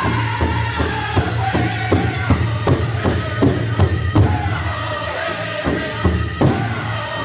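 Powwow drum group singing in high voices over a steady beat on a shared big drum, struck together by the seated drummers at about two and a half beats a second.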